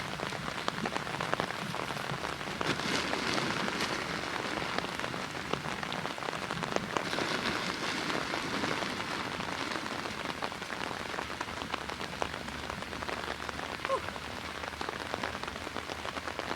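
Steady heavy rain falling, a dense hiss of drops pattering on the ground and surfaces around.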